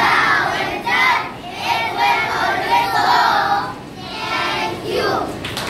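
A group of young schoolchildren singing a song together, in short phrases of about a second each.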